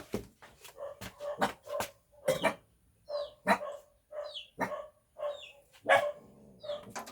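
A dog barking repeatedly, short sharp barks about every half second to a second.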